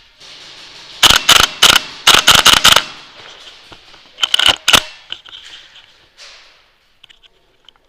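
Airsoft guns firing in quick bursts of sharp cracks with a short echo: about nine shots in under two seconds, then after a pause another burst of four or five.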